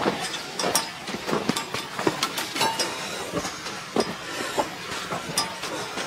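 Footsteps crunching through packed snow, an uneven crunch about twice a second, with light metal clinks from gear.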